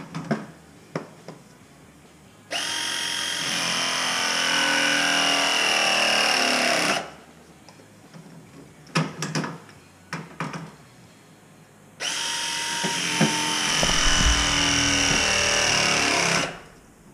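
Battery-powered press tool making two press cycles on copper pipe fittings. Each cycle is a steady motor whine lasting about four and a half seconds, with clicks and knocks of the jaws being set on the fittings between them.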